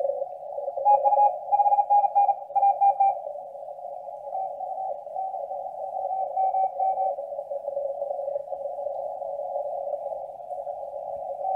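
Icom IC-751A HF transceiver receiving Morse code (CW) through its narrow CW filter, which admits only a band of hiss. Keyed tones run quickly from about a second in and come in fainter from about four to seven seconds. The audio cuts off suddenly at the end.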